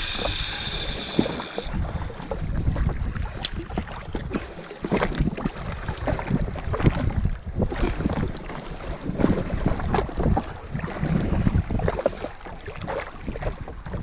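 Wind buffeting the microphone on open water, an irregular low rumble with scattered knocks and slaps. A high hiss cuts off about two seconds in.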